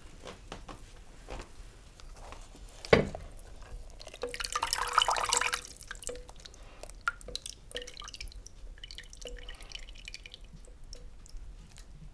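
Water in a steel pot being stirred and splashed as an egg is fished out with a cloth oven mitt. A sharp knock comes about three seconds in and a splash follows. Then come scattered drips of water falling back into the pot, each with a short ring.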